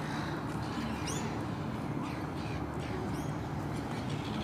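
Small birds chirping in quick, short calls over a steady low hum.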